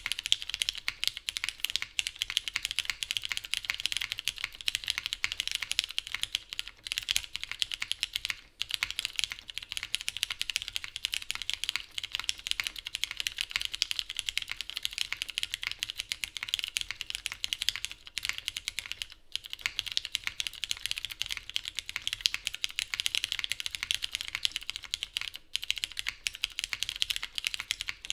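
Continuous fast typing on a custom mechanical keyboard: lubed Cherry MX Brown tactile switches in a top-mounted polycarbonate plate with no foam, under GMK doubleshot ABS keycaps, giving a dense run of muted key clacks with brief pauses now and then.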